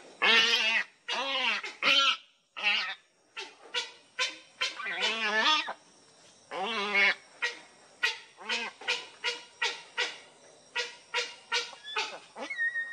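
Young heron calling: a run of loud, harsh squawks, several long ones in the first few seconds, then shorter calls coming two or three a second.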